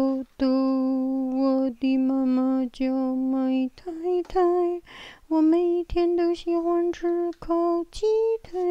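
A woman singing a simple sing-song tune without clear words: short held notes repeated on one pitch, then, after a brief pause about halfway, repeated on a higher pitch.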